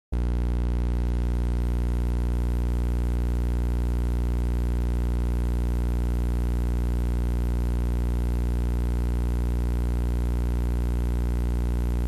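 Steady electrical mains hum with a stack of overtones and a faint hiss above, in the audio of an old videotape transfer. It sets in abruptly at the start and holds at an even, fairly loud level.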